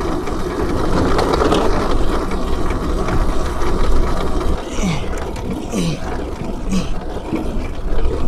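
Suzuki GSX-R600 motorcycle under way, its inline-four engine running beneath heavy wind rumble on the microphone. The noise dips briefly a few times, about a second apart, in the middle.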